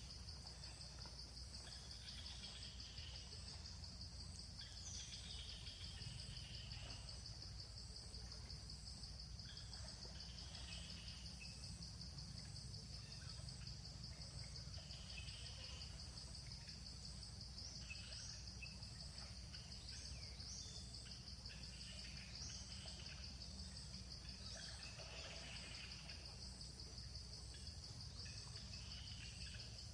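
Steady, faint chorus of insects trilling on one high pitch, with scattered short bird chirps over it and a low outdoor rumble beneath.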